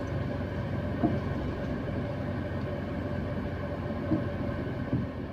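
Steady low rumble inside a car's cabin with the engine running.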